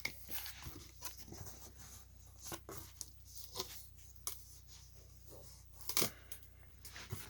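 Cardboard box being opened and its packing handled: scattered rustles, scrapes and light taps, with a louder knock about six seconds in.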